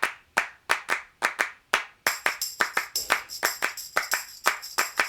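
Rhythmic hand claps opening a music track, about three a second at first. About two seconds in they come faster and high sustained tones join them.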